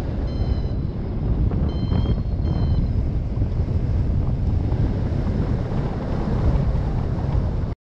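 Airflow buffeting the microphone of a camera on a flying paraglider pilot, a loud steady low rumble. In the first three seconds a few short high electronic beeps sound over it, the climb tone of a paragliding variometer.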